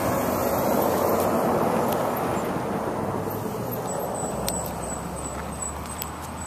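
Road traffic: the sound of a passing vehicle fading away over several seconds. A string of short high-pitched chirps runs through the second half.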